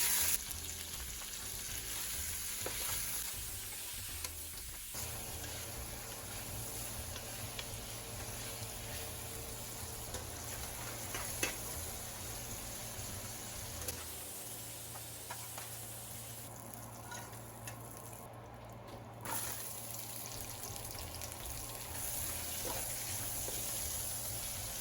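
Food sizzling as it fries in a pan, with scattered clicks of a utensil stirring against the pan. The sizzle changes in level and texture abruptly several times.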